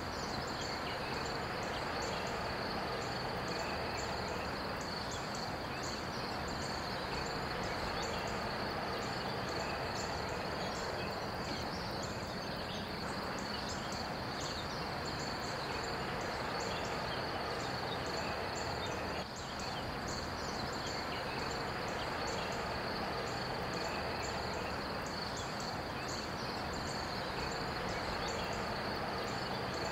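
Outdoor evening ambience: insects chirping in a steady high chorus over a low, even background noise, with a slight break in the sound about two-thirds of the way through.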